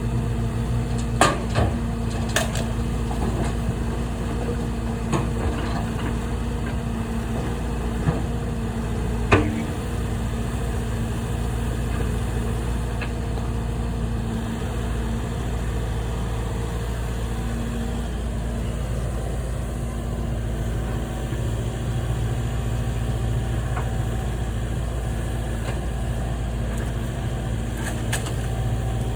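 Heavy machinery engine running steadily throughout, with several sharp knocks from debris being handled in the first ten seconds, the loudest about nine seconds in.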